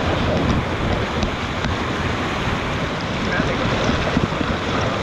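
River rapid: whitewater rushing and churning over rocks close to the microphone in a steady, loud wash, with wind buffeting the microphone.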